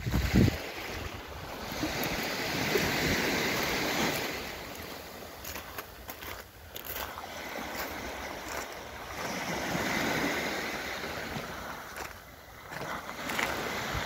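Small waves breaking and washing up a fine-pebble beach, the surf swelling and fading twice. Wind buffets the microphone in a brief loud rumble at the very start.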